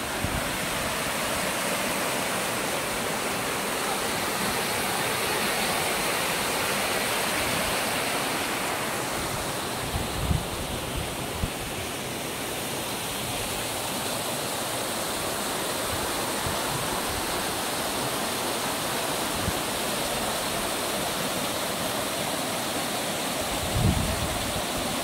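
Small snowmelt mountain stream and cascade rushing steadily over rocks. Brief low bumps about ten seconds in and near the end.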